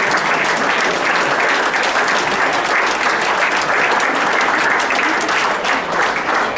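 A large crowd applauding, many hands clapping at once in a dense, steady patter.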